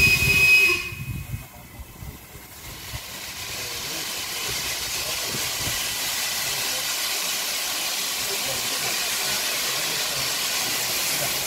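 LMS Ivatt Class 2MT steam locomotive hissing steam as it pulls away, a steady hiss that builds over a couple of seconds and then holds. A short high whistle cuts off within the first second.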